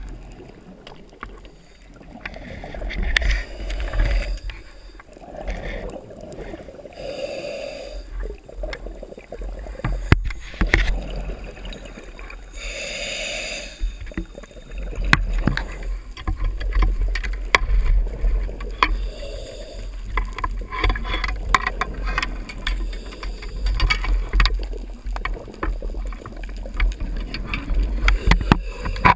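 Underwater sound heard through a diving camera's housing: a low rumble with scattered sharp clicks, and a diver's exhaled bubbles gushing for about a second every few seconds.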